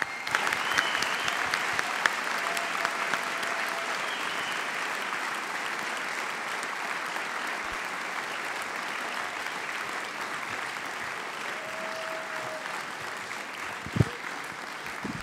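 Large audience applauding, steady clapping that slowly dies down, with a single thump near the end.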